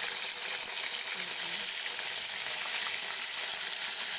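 Fish frying in hot oil in a pan: a steady sizzle.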